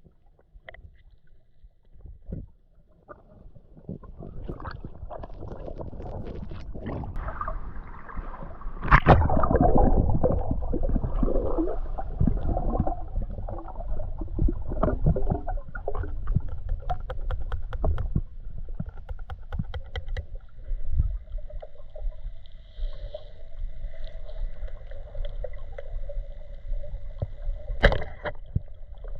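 Water gurgling and sloshing around a camera in a river, with many small clicks and knocks. It starts almost silent, builds over the first few seconds and is loudest about nine seconds in. Faint steady tones come in during the second half.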